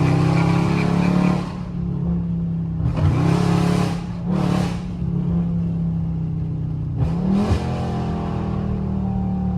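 Dodge Charger Scat Pack's 392 Hemi V8 running through catless mid pipes while the car is driven hard. The revs climb right at the start, two short loud surges come around three and four and a half seconds in, and the revs climb again about seven seconds in; between these the engine holds a steady note.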